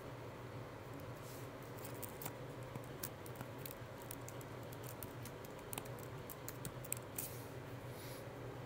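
Faint computer keyboard typing: irregular light key clicks, several a second at times, over a low steady hum.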